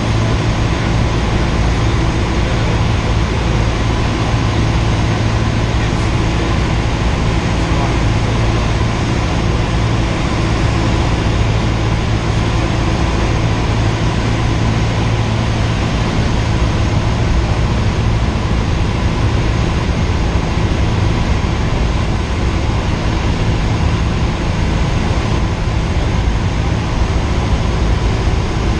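Cessna 172R's four-cylinder Lycoming engine and propeller running steadily in cruise flight, a constant drone heard inside the cabin.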